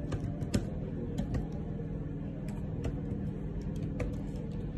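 Slow, irregular keystrokes on a computer keyboard, single clicks spaced about half a second to a second apart, over a steady low hum.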